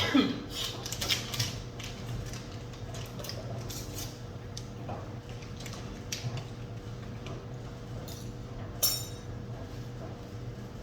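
Kitchen handling sounds: scattered light clicks and knocks of utensils and containers, with a sharper knock near the end, over a steady low hum.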